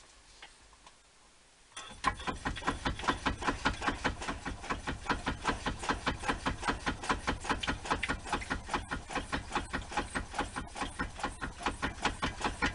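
Dana 44 axle making a rapid, regular knocking, several knocks a second, over a low hum; it starts about two seconds in and holds a steady pace. This is the axle noise that the owner sets out to show as a problem.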